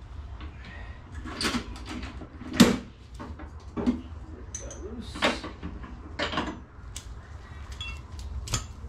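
A series of separate knocks and clanks, about six spread a second or so apart with the loudest about two and a half seconds in, from metal parts and tools handled while working on a snowmobile's rear suspension and track.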